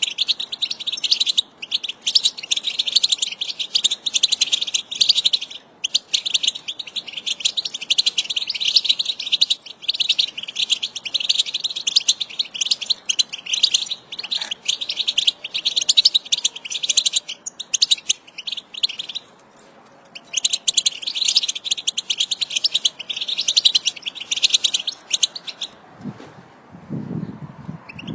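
A flock of European goldfinches twittering: a dense, rapid chatter of many overlapping high calls, broken by two brief pauses and a pause of about a second two-thirds through. The chatter stops about two seconds before the end, where a low rumbling noise takes over.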